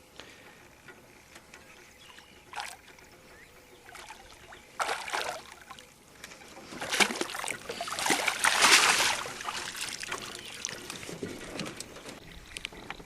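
A hooked largemouth bass thrashing and splashing in the water beside the boat as it is brought in. A short splash comes about five seconds in, then a longer, louder spell of splashing from about seven to ten seconds in.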